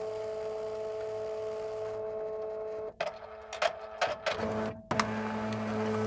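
Fax machine running: a steady two-note whine, broken about halfway through by a run of mechanical clicks and clatter, then settling into a lower steady hum for the last second.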